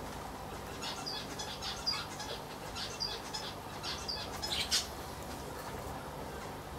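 A small bird chirping, a quick run of short high chirps lasting about four seconds, over a steady low hum.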